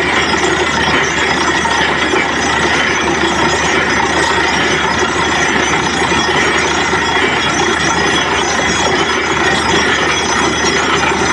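Borewell drilling rig running steadily, with compressed air blasting rock cuttings and spray up out of the bore around the drill pipe: a loud, unbroken mechanical noise with hiss and the rattle of flying grit.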